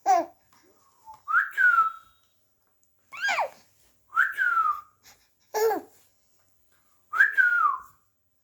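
A baby's high-pitched squeals of delight: six short calls about a second apart, most sliding down in pitch.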